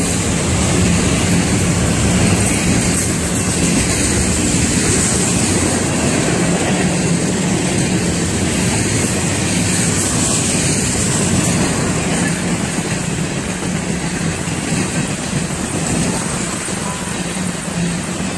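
Florida East Coast Railway mixed freight train passing close by, its autoracks, tank car and covered hoppers rolling along the track with a steady, loud noise of steel wheels on rail.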